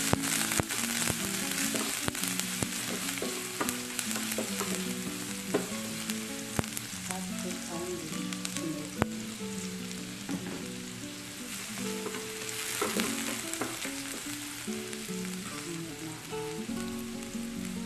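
Sliced onions sizzling in oil in a nonstick frying pan, stirred and turned with a plastic spatula, with scattered light scrapes and taps. Quiet background music with held notes plays underneath.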